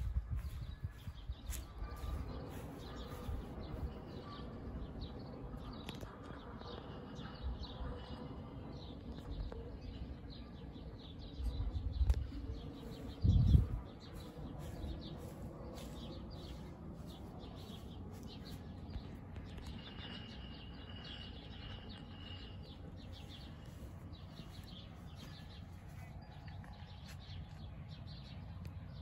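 Small birds chirping over a low outdoor rumble, with two dull bumps near the middle.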